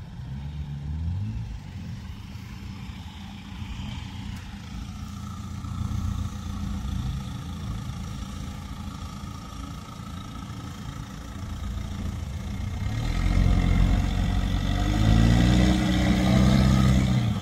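Mitsubishi Triton pickup's engine running at low revs as it crawls over dirt mounds, then revving harder about 13 seconds in as it climbs a bank, with the rear wheel spinning and throwing dirt.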